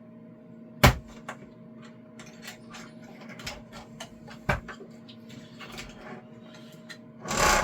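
Small plastic clicks and taps of a tool poking at the Bambu AMS unit's PTFE tube coupling clasp, with two sharper clicks, about a second in and about four and a half seconds in, and a short rustling burst near the end. A steady low hum runs underneath.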